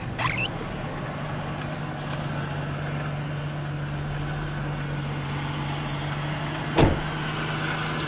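Ford Taurus engine idling with a steady hum, while the owner tracks down a rattle that he suspects comes from the exhaust. A single loud thump about seven seconds in.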